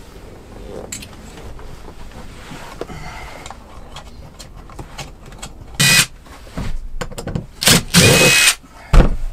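Cordless drill-driver spinning in two bursts, a short one and then one of about a second with a steady motor whine, backing out the screws of a dashboard speaker. A thump follows near the end.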